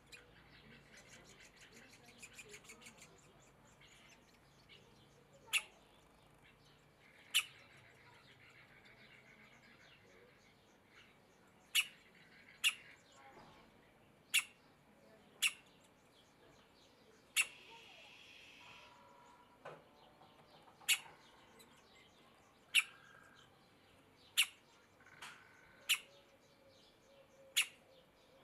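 Middle spotted woodpecker nestling calling from its nest hole: short, sharp single calls about fourteen times, one every one to two seconds at uneven spacing, with faint songbirds in the background.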